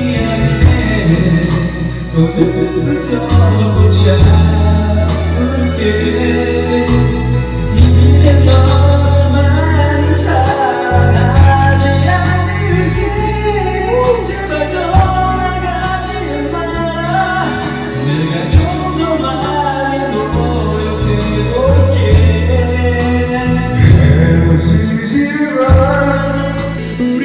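A Korean pop ballad sung live over a karaoke backing track, with a sung melody line above a steady instrumental accompaniment.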